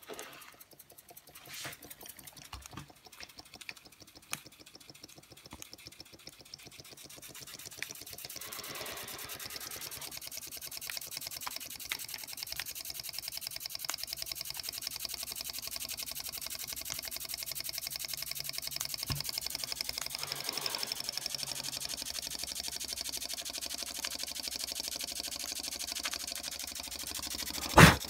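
Antique Radiguet No. 2 model steam engine running, its flywheel spinning: a rapid, even hiss of steam exhaust that builds up over the first several seconds and then holds steady. A single sharp knock near the end.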